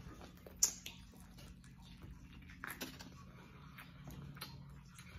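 Quiet eating sounds: a plastic fork working at food on a paper plate, and chewing. There is a sharp click about half a second in and another smaller one a couple of seconds later, with scattered light ticks over a faint steady hum.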